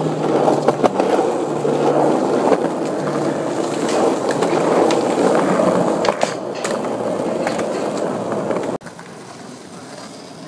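Skateboard wheels rolling on concrete, with a few sharp clacks of the board hitting the ground about six seconds in. Near the end the loud rolling cuts off abruptly and gives way to fainter rolling.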